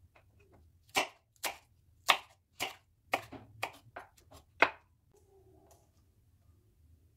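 Kitchen knife slicing green chili peppers on a wooden cutting board: sharp chops about twice a second that stop about five seconds in.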